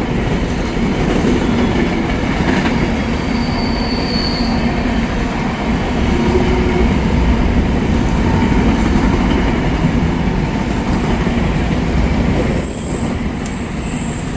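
BNSF freight train rolling past close by: a steady, loud rumble of steel wheels on rail. Thin, high wheel squeal comes in briefly at the start and again in the last few seconds.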